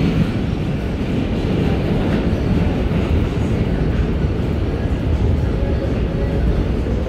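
Steady running noise of an R160B Siemens subway car moving through a tunnel, heard from inside the car: an even rumble of wheels on rail and car body, with no let-up.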